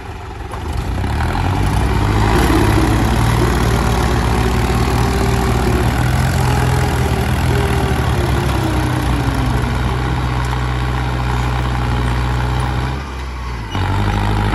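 Mahindra 265 tractor's diesel engine running hard under heavy load, straining to haul a loaded sand trolley out of the mud, with a second tractor's engine pushing from behind. The engine noise builds a second or two in, holds loud and steady, and dips briefly near the end before picking up again.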